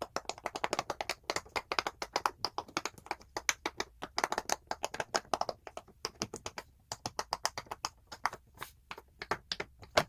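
Silicone pop-it fidget toy being pressed bubble after bubble: a rapid run of short pops, several a second, broken by a few brief pauses.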